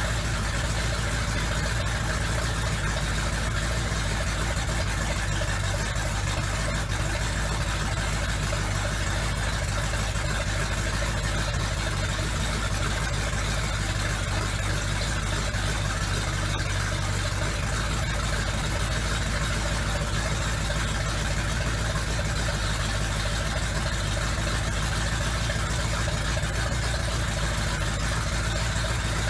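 Chevrolet 454 cubic-inch big-block V8 in a 1965 Chevy C10 idling steadily.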